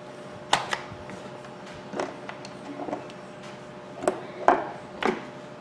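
A series of separate sharp clicks and knocks of the plastic housing of a Makita hammer drill being handled and put back together with its back cover, and the drill being set down on the workbench.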